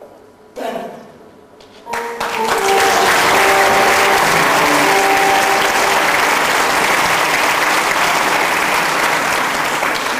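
Audience applauding loudly in a hall, starting about two seconds in, with a few held shouts over the clapping; a short single sound comes just before it.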